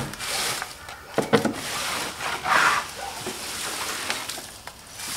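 Hay bedding rustling and scraping as a chick brooder is cleaned out, with a few sharp knocks.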